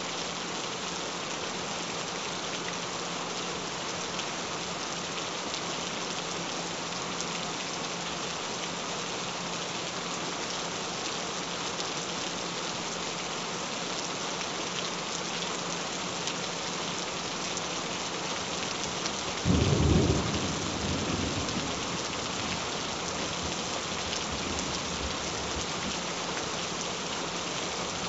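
Steady rain falling, with one clap of thunder about two-thirds of the way through that rumbles away over a couple of seconds. A faint steady low tone runs underneath.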